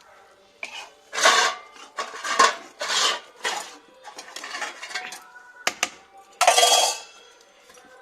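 Metal utensil scraping and clinking against a cooking pot in a series of short strokes, as when stirring the chicken curry.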